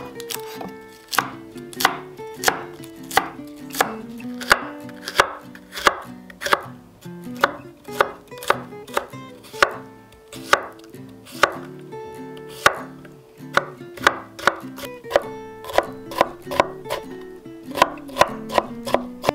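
Chef's knife chopping on a wooden cutting board, slicing red cabbage and then cucumber in evenly spaced strokes, each a sharp tap of the blade on the board. The strokes come faster near the end as the cucumber is diced.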